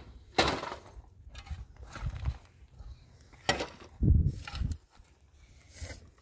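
Irregular knocks, thuds and scrapes from hand building work on a shelter. The heaviest thud comes about four seconds in.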